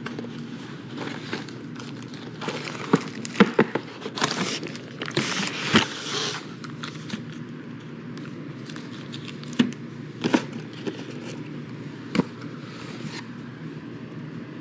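Frozen-meal cardboard carton and plastic tray being handled: clicks, knocks and a rustling scrape about five to six seconds in as the tray comes out of the box onto the table, then a few single knocks. A steady low hum runs underneath.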